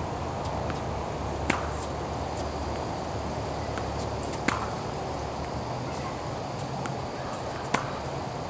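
Tennis racket striking a ball three times, about three seconds apart, during a groundstroke rally drill, with a few fainter ticks between the hits over a steady low background hum.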